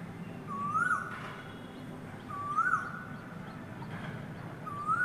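A bird calling over and over: three short calls about two seconds apart, each note rising in pitch and then dropping sharply.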